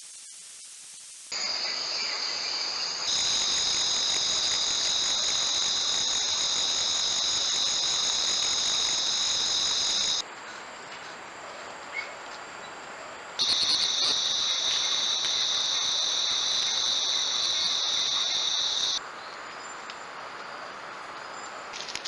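Loud, steady chorus of jungle insects, several shrill tones held without a break. It cuts off suddenly about ten seconds in and comes back a few seconds later before stopping again near the end, as the trail-camera clips change.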